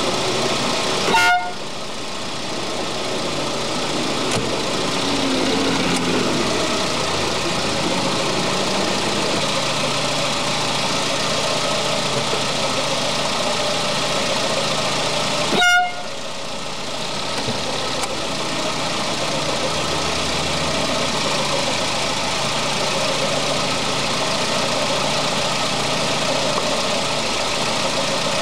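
A 1985 Citroën CX25 GTi's horn sounded in two short toots, one about a second in and one about fourteen seconds later, each a fraction of a second long. Between them a steady running noise carries on without change.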